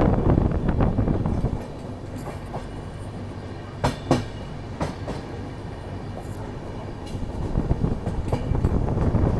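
Moving Double Decker Express passenger train heard from its open door: steady running noise of the coaches, with a few sharp wheel clacks over the track about four to five seconds in. The noise is loud at first, drops after about a second and a half, and builds again near the end.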